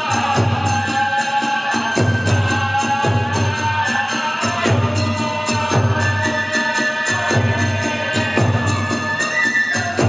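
Kagura accompaniment music: a bamboo flute playing a held, stepping melody over a steady beat on a large drum and an even, rapid clashing of small hand cymbals.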